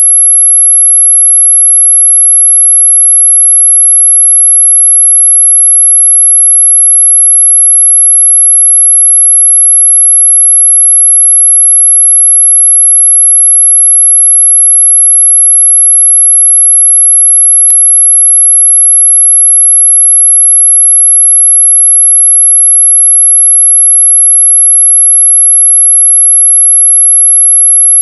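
A synthesized mosquito-repellent tone: one loud, steady, very high-pitched whine that never changes pitch or level.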